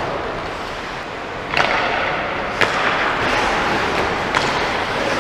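Ice hockey play: three sharp clacks of stick and puck, the loudest about a second and a half in, over steady rink noise.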